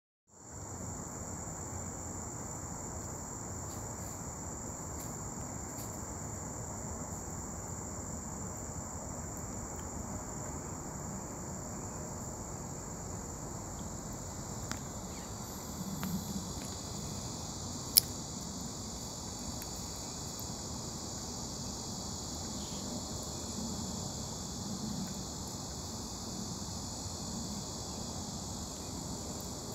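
Steady, high, even drone of a chorus of insects. A single sharp click sounds once past the middle.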